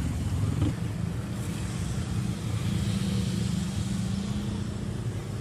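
Steady low rumble of a running engine with a hum that holds near one pitch.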